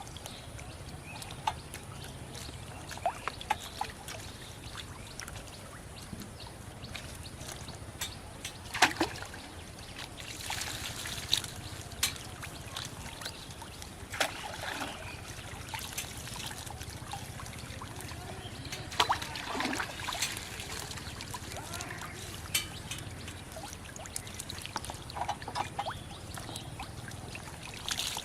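Shallow water trickling and splashing, with scattered sharp splashes and drips throughout.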